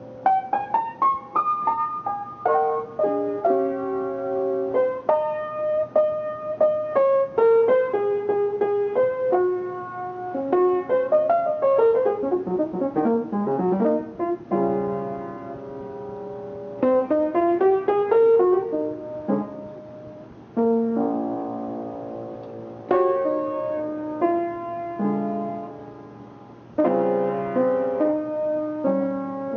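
Jazz piano playing chords and single-note lines, with a long descending run about twelve seconds in.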